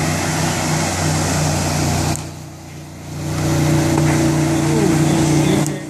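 Motorboat engines running steadily at speed, with water rushing and spraying. The rush of water drops away abruptly about two seconds in and builds back a second or so later.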